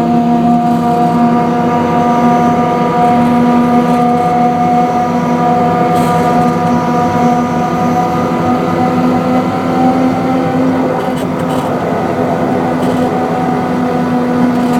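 The 80-horsepower diesel engine and hydraulic drive of a 15-inch gauge ride-on locomotive run steadily under way with a steady whine. The pitch drops slightly about ten seconds in, as the power eases.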